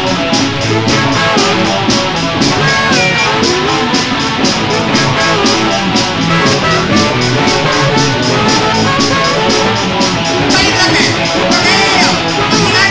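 Rock and roll song: guitar over bass and drums, with a fast steady beat.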